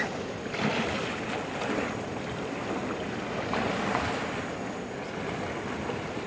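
A person swimming in a shallow river, the kicks and strokes splashing, over the steady rush of the flowing water. The splashing comes in louder spurts about a second in and again around four seconds.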